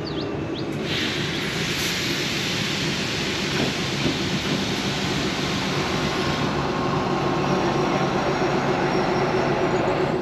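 Diesel-hauled train running across a railway trestle bridge, a steady rumble with an engine hum that grows louder about a second in and holds.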